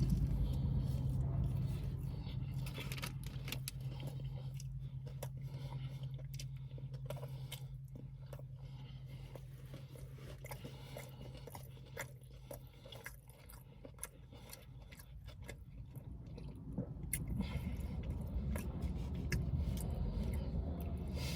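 A person chewing a mouthful of a wrap with crumbled ghost pepper chips inside: soft crunching and wet mouth clicks. A steady low hum runs underneath and fades out about two-thirds of the way through.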